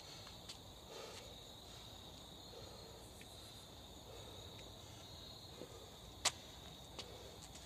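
Crickets trilling in a steady high tone, with one sharp click about six seconds in.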